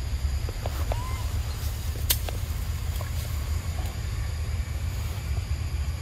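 Outdoor ambience: a steady low rumble with a few faint sharp clicks, and one short rising-then-falling whistled call about a second in.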